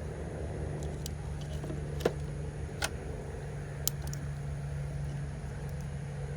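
Three sharp metallic clicks of a hand tool on a car battery terminal as the battery is reconnected, spread over about two seconds, over a steady low hum.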